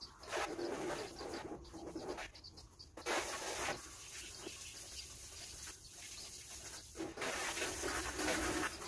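Water spraying from a hose nozzle onto a car and splashing off the bodywork. A harder, even hiss of spray runs from about three seconds in to about seven seconds in.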